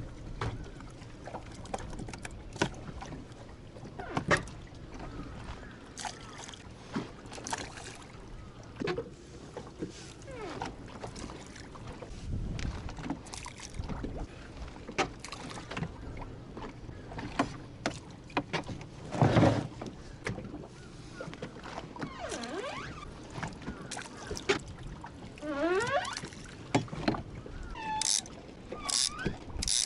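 Knocks, clicks and clatter on a small moored fishing boat over a steady low background of water and wind, with a few short squeaks near the end.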